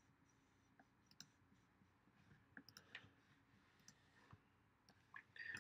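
Near silence with a few faint, scattered computer clicks.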